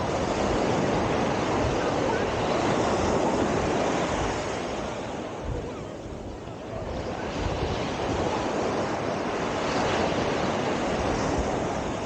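Ocean surf washing onto the beach, with wind buffeting the microphone. The wash is strong at first, eases about six seconds in, then builds again.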